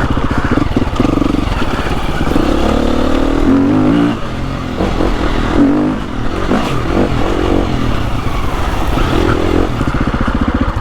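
Single-cylinder four-stroke engine of a KTM 350 EXC-F trail bike running under load, revving up and down as it climbs a rocky, stepped lane, with some clatter over the stones. It drops away right at the end.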